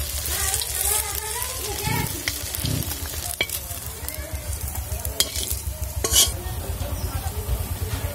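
Oil sizzling in a kadai as pumpkin-flower fritters deep-fry and are lifted out, with a metal spatula scraping and clinking against the pan several times, the sharpest clink about six seconds in.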